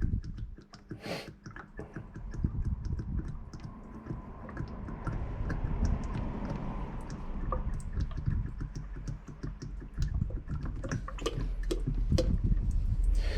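5W-40 engine oil being poured from a container, glugging and gurgling as air bubbles back in, with a dense patter of small clicks that grows louder as it fills.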